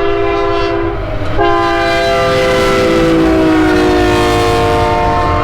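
Union Pacific freight locomotive's air horn sounding a chord of several notes: a short blast, then about a second and a half in a long blast whose pitch slowly drops as the locomotive passes. The steady low rumble of the moving freight train runs underneath.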